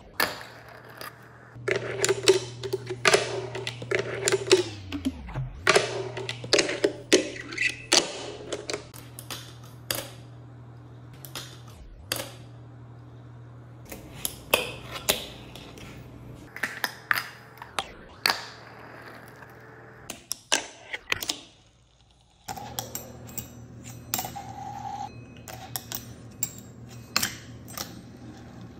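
Fingerboard tricks on a stone countertop: a run of sharp clacks and taps as the small finger skateboard is popped, flipped and landed on the counter, a ledge and a rail, over a steady low hum that cuts in and out between clips.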